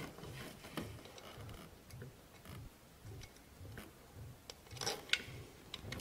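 Faint, scattered light metallic clicks and handling noise from small ignition-coil mounting bolts being set in place and started by hand, with two sharper clicks near the end.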